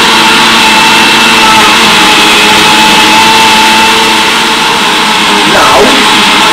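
Countertop jug blender's electric motor running at full speed, a loud, steady whine, blending spinach, mango, banana and yogurt into a smoothie.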